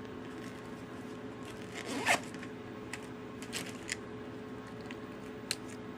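A bag's zipper pulled open about two seconds in, followed by scattered light clicks as things inside are handled while a marker is fished out.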